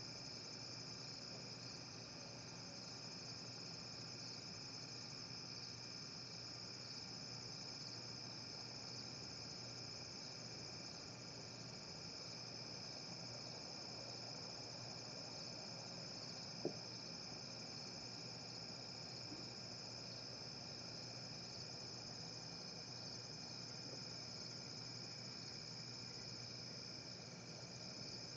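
Steady night chorus of crickets, a continuous high trill that holds unchanged, over a faint steady low hum. One short sharp click about seventeen seconds in.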